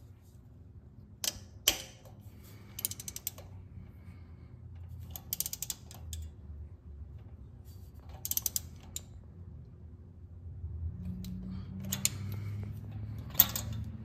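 Hand ratchet wrench clicking as a new spark plug is run down and tightened through a socket and extension. The clicks come in about six short bursts of quick pawl clicks, a second or two apart.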